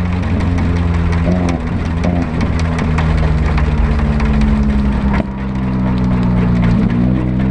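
Nissan's turbocharged KA24DET four-cylinder engine running at fairly steady revs, with a short dip in level about five seconds in before it picks up again.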